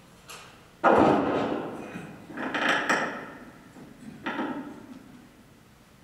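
A few loud thumps and rustling knocks from handling at the lectern microphone, the loudest about a second in and each dying away over a second or so.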